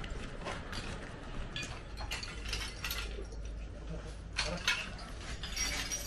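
Irregular small clinks, clicks and crunches of broken earthquake rubble being shifted and stepped on, strongest a little after four seconds in, over a low steady hum.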